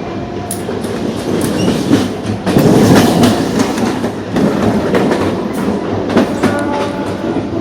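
Mumbai AC electric multiple unit train running, heard from inside a motor coach: wheels clicking over rail joints above a steady rumble of the running gear, loudest about three seconds in.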